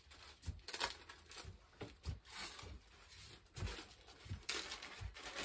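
Plastic packaging bag rustling and crinkling as it is handled and pulled open, with a few soft bumps.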